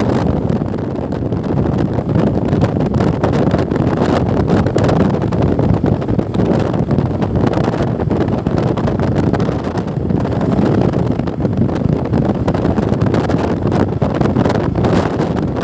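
Wind blowing hard across the microphone, a loud, steady low rumble that flickers in strength.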